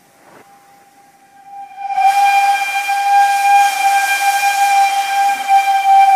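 A loud, steady whistle over a hiss starts about two seconds in, holds one pitch, and cuts off abruptly.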